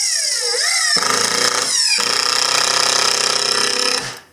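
Cordless impact driver driving a screw into a wooden 2x4 frame. The motor whines and winds up for about a second, then the hammering impact mechanism kicks in as the screw takes load and rattles steadily for about three seconds before stopping abruptly.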